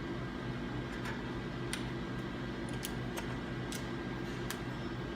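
A few faint, scattered clicks as small metal parts of a flat box handle's pinch brake are handled and fitted together, the pin going through the front bracket, over a steady background hum.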